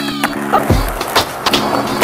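Soundtrack music: a held bass chord that breaks off a little under a second in on a low thump, then a drum beat, with skateboard wheels and board hits on pavement mixed in under it.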